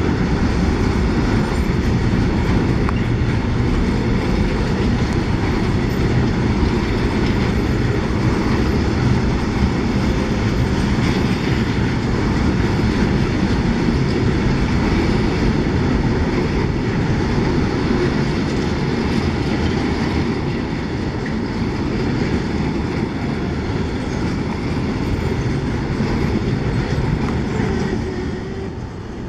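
Container freight train rolling through at close range: the steady noise of loaded container wagons' wheels running over the rails, dropping away near the end as the last wagon passes.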